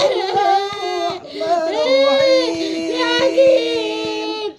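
A person crying out in long, high-pitched, wavering wails, with a lower held voice tone underneath in the second half.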